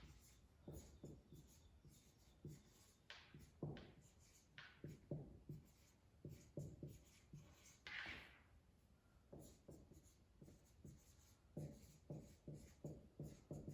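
Faint marker pen writing on a whiteboard: a run of short strokes, with a longer, higher scrape about three seconds in and another about eight seconds in.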